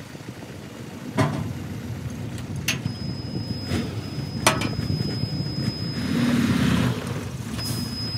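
Dump truck's diesel engine running as the tipper body comes down and the truck moves off, with a few sharp knocks in the first half. About six seconds in there is a louder rushing stretch lasting about a second.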